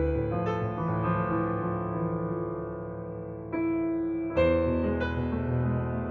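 Slow background piano music: chords struck every half second to couple of seconds and left to ring out.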